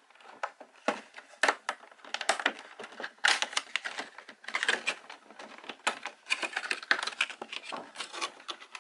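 A collectible figure's cardboard box being handled and opened: an irregular run of crackles, clicks and rustles with no steady rhythm.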